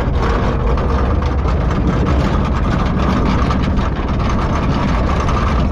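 A motor vehicle's engine running steadily with a heavy low rumble, overlaid with constant small rattles and clicks.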